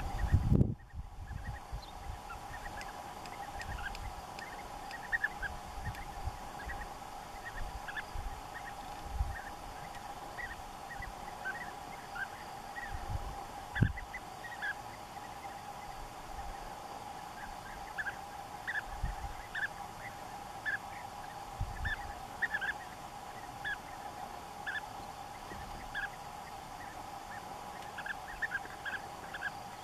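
European bee-eaters calling: many short calls, scattered singly and in quick clusters throughout, over a steady tone-like drone, with a few brief low bumps.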